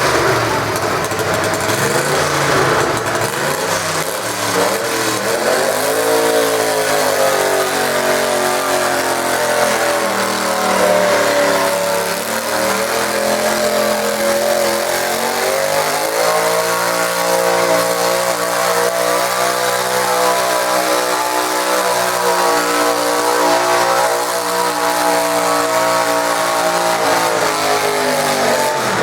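Garden tractor engine running hard under load, as when pulling a weight sled. Its pitch climbs about five seconds in, sags around twelve seconds, then rises again and holds steady.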